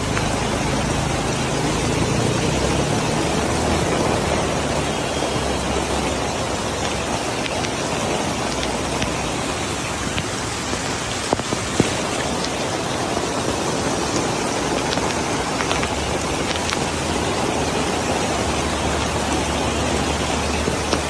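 Rainwater running down a steep road in the rain: a steady rushing hiss of flowing water and falling rain, with two brief clicks a little past halfway.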